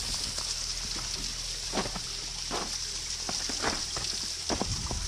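Natural spring waterfall splashing and trickling in a steady hiss, with single drops or splashes standing out about once a second.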